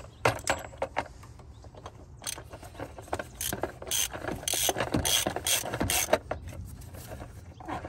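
Hand ratchet with a 27 mm socket clicking in quick runs of back-strokes as the engine oil filter housing cap is tightened, the clicks thickest in the middle.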